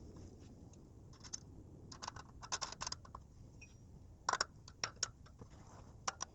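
Small metal clicks and light scraping while the front wheel's axle nuts are fitted and tightened: irregular sharp ticks in short clusters, the loudest about four seconds in.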